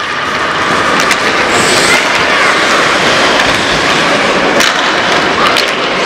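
Ice hockey game: a steady scraping of skates on the ice with a few sharp clacks of sticks hitting the puck, over players' and spectators' voices.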